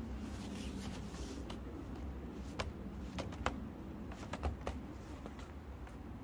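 Dark tent fabric being unrolled and handled on a wooden deck: scattered light clicks and taps, most of them between about two and a half and five seconds in, over a low steady rumble.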